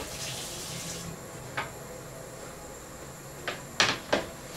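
Water running briefly, then a few sharp kitchen clatters and knocks, the loudest two close together near the end.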